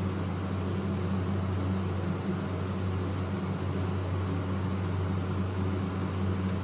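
Steady low electrical hum with an even hiss underneath, unchanging throughout, with no other sound standing out.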